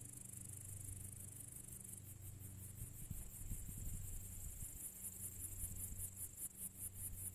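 Crickets chirping in the evening: a high-pitched steady trill that turns about two seconds in into a fast, even pulse of chirps, several a second. A faint low steady hum lies underneath.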